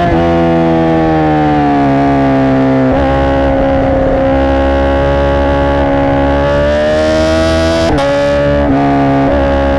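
2017 Honda CBR1000RR Fireblade's inline-four engine running through a Racefit exhaust, a loud steady note that slowly falls in pitch, holds, then rises again, with brief breaks in the note about three seconds in and near the end.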